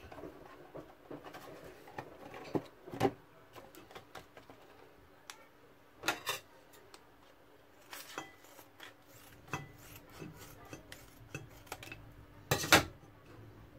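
A plastic vacuum pack of mussels being handled over a plastic bowl: scattered crinkles, rustles and light knocks. The loudest crinkle comes near the end, as the pack is cut open with scissors.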